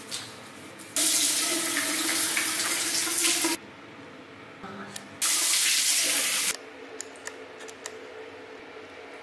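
Water running from a bathroom sink tap in two spells, the first about two and a half seconds long and the second just over a second, each starting and stopping abruptly. A few faint clicks follow near the end.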